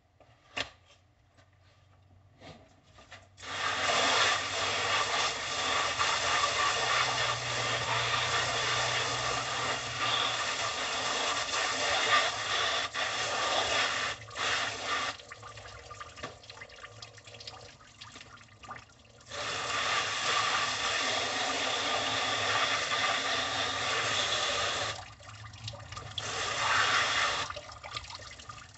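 Water jetting from a hose spray nozzle onto a plastic table, rinsing raw pig chitterlings. It comes on about three seconds in and runs for about ten seconds, comes back from about nineteen to twenty-five seconds, and sounds again in short bursts near the end; a few sharp clicks come before the first spray.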